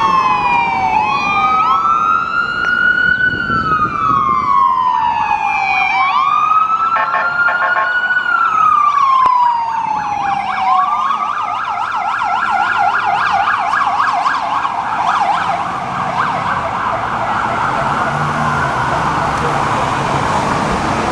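Ford F-450 Horton ambulance's electronic siren on an emergency run. It sounds slow rising-and-falling wail cycles, then switches to a fast yelp about halfway through, which gradually fades as the vehicle moves off, over city traffic.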